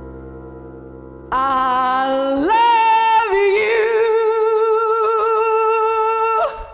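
Music: a held orchestral chord fades, then about a second in a singing voice comes in on a long wordless note with vibrato. The note steps up in pitch about a second later, holds, and is cut off near the end.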